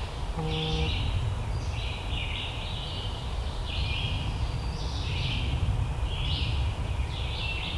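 Woodland birdsong: short, high phrases repeat every second or so over a steady low rumble, with a brief low tone about half a second in.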